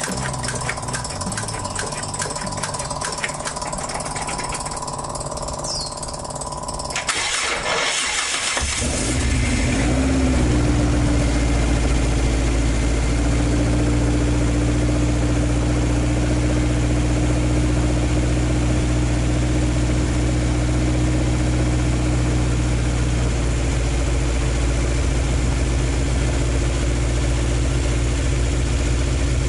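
A rapid rhythmic clatter for about seven seconds, then a short burst of noise as the Toyota 5-valve (20-valve) 4A-G four-cylinder engine in an AE86 starts. From about nine seconds in it idles steadily.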